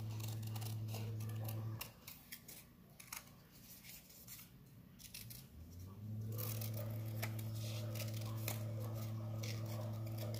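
Scissors cutting through construction paper in a run of short snips, over a steady low hum that drops out for about four seconds from about two seconds in.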